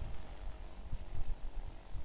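Ultralight's engine running at low power while it rolls over grass, under uneven low buffeting from gusty wind on the microphone.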